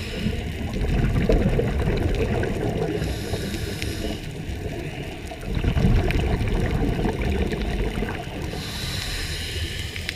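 Scuba regulator breathing heard underwater: a hissing inhale about three seconds in and again near the end, with the rumble and gurgle of exhaled bubbles in between.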